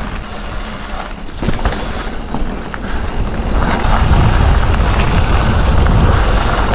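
Wind buffeting an action camera's microphone as a Canyon Spectral CF 7 mountain bike rolls fast down a dry dirt trail, with tyre rumble and a few sharp rattling clicks from the bike. The wind rush grows louder about three and a half seconds in.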